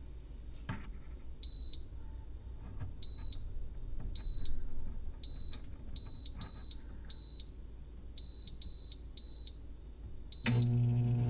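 Cosori air fryer oven control panel beeping about eleven times at uneven intervals as its buttons are pressed, each beep a short, high electronic tone. Near the end a click, and the oven's fan starts running with a steady hum.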